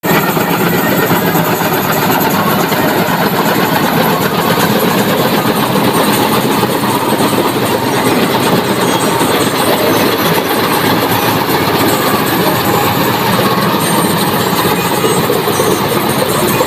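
Tractor-mounted combine harvester (a Balkar header and thresher on a John Deere 5075E) running while it cuts paddy: a loud, steady mechanical clatter from the engine and the harvesting mechanism.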